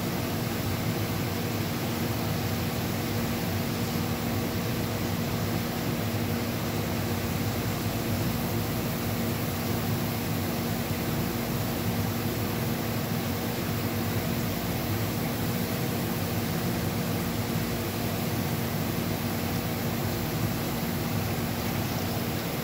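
Steady mechanical drone of running shop equipment: an even rushing hiss with a constant low hum under it, unchanging throughout.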